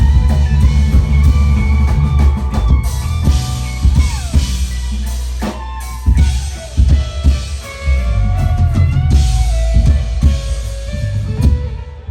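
Live band playing an instrumental groove: drum kit, electric bass and guitar, with the guitar bending notes in a lead line.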